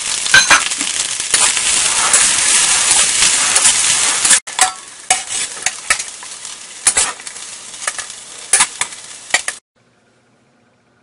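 Fried rice sizzling in a hot wok while a metal wok spatula stirs and tosses it, with sharp clinks of metal on the wok. About four seconds in the sizzle drops away and quieter scrapes and clinks follow as the rice is scooped from the wok onto a metal plate.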